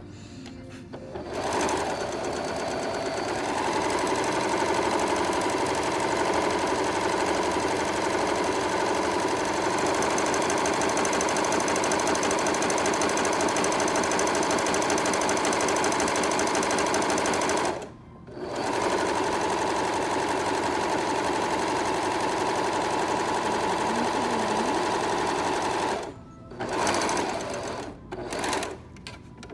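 Husqvarna serger (overlocker) running at speed, sewing a 3-thread rolled hem over a fine wire along the edge of a fabric strip. It starts about a second in, stops briefly about 18 seconds in, runs again, then gives a few short bursts near the end.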